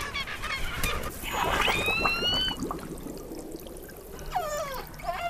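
Killer whale calls heard underwater: a rising whistle about a second in, then several calls gliding downward near the end, over water noise.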